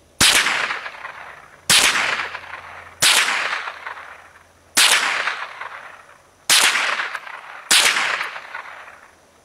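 Marlin Model 60 semi-automatic .22 LR rifle fired six times at an uneven pace, shots about one to two seconds apart. Each sharp crack trails off over about a second.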